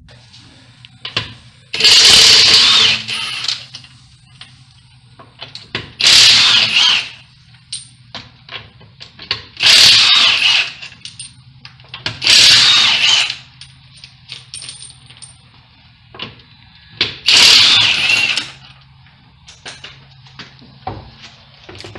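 Impact wrench run in five short bursts of about a second each, used to work the wheel or axle fasteners loose during a wheel bearing replacement, with small metal clicks of tools between bursts.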